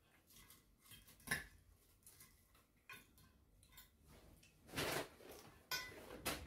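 Knives and forks clinking and scraping on plates while food is cut: a few scattered sharp clinks, the loudest about a second in, and a longer scrape about five seconds in.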